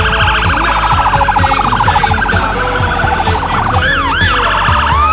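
Fire engine's electronic siren changing tones: a rapid warbling pulse, then a few quick rising-and-falling sweeps a little before the end, and a slow rising wail starting right at the end.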